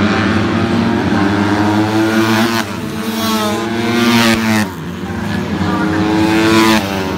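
Several small racing motorcycles accelerating hard down the straight past the listener, engines revving with the pitch climbing and then breaking off sharply three times.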